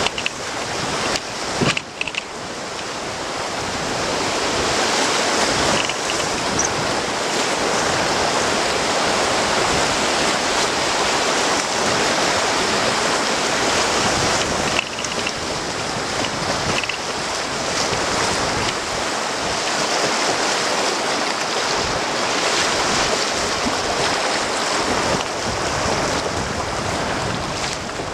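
Whitewater rushing through a shallow, rocky river rapid at low flow, heard from a raft riding it, with a few sharp knocks in the first couple of seconds. The rush eases a little near the end as the water flattens out.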